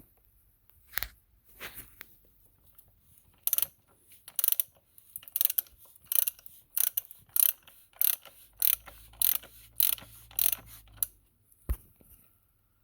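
Ratchet wrench clicking in a steady run of short strokes, roughly one or two a second, as a 32 mm socket unscrews the oil filter housing cap, with a single knock near the end.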